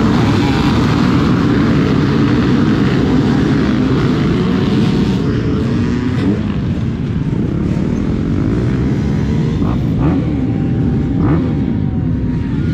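Two-stroke dirt bike engine running under way, its pitch rising and falling as the throttle is worked, with a couple of sharp knocks about ten seconds in.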